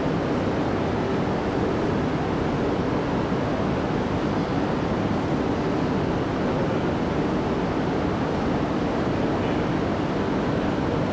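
Steady rushing background noise of a station and city at night, even throughout with no distinct events.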